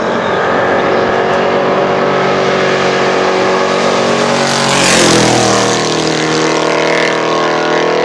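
Ford pro-class race truck at full throttle, running toward and close past the listener. Its engine note drops in pitch as it goes by about five seconds in, then it pulls away.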